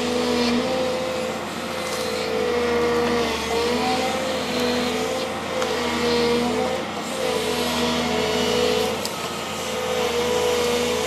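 Volvo excavator's diesel engine running steadily under working load, its pitch dipping briefly several times and recovering.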